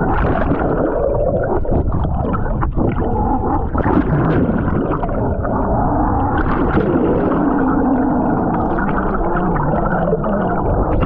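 Underwater sound picked up by a submerged GoPro: a dense, muffled rush of water with faint wavering tones. It cuts off abruptly at the end as the camera comes out of the water.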